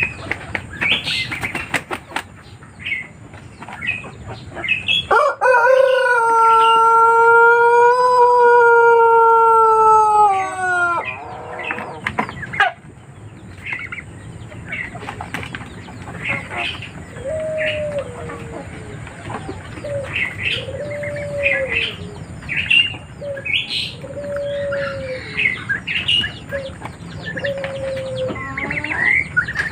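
A male Pelung rooster crows once, a single long crow held steady for about five seconds before falling away at the end. This long drawn-out crow is what the breed is kept for. Later come about six short falling calls, with short high chirps scattered throughout.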